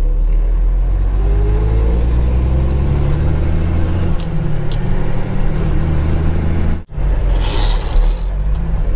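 A dump truck's diesel engine running steadily, with a short burst of hissing about three-quarters of the way through.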